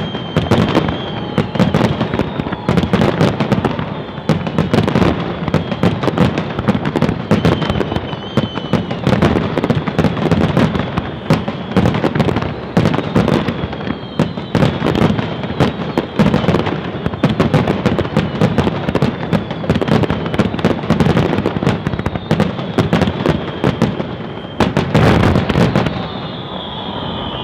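Aerial firework shells bursting in rapid, overlapping succession: a dense, continuous string of bangs and crackles with a deep rumble underneath. The bangs thin out briefly near the end.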